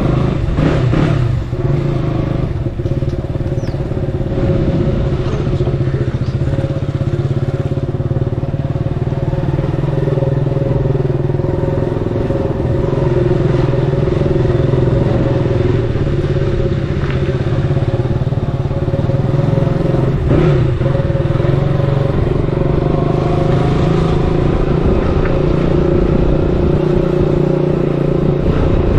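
KTM 200's single-cylinder engine running steadily as the motorcycle rides along at an even pace.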